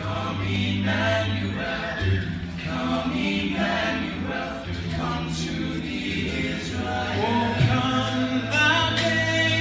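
A cappella vocal ensemble singing in harmony without instruments, the upper voices moving over a held low bass note.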